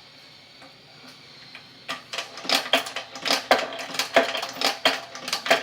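Metal coins clinking and clattering against each other and against metal, starting about two seconds in as a rapid, irregular run of ringing clinks.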